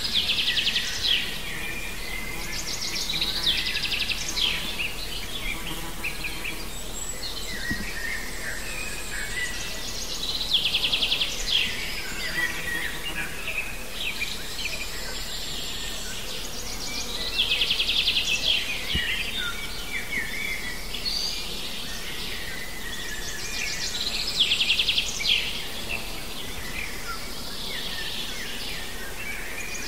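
Songbirds singing. One bird repeats a short, fast trilled phrase about every seven seconds, and shorter chirps from other birds fall in between.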